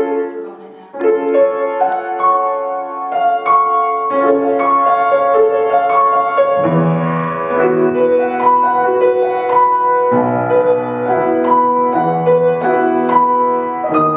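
Piano played with both hands: a melody of held notes over chords, with the bass notes growing fuller about halfway through.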